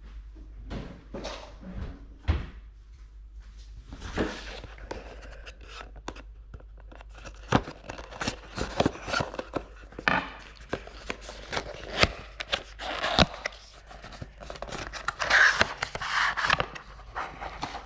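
Cardboard box of a GoPro battery being handled on a hard tabletop: a run of taps and knocks as it is set down and turned over, then scraping and rustling as the blue paper sleeve is slid off the white inner box near the end.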